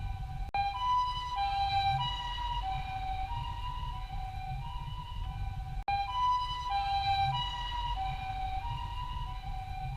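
Japanese ambulance siren sounding its two-tone "pee-po" call, a higher and a lower tone alternating about every half second, over a steady low rumble. The sound cuts out briefly twice.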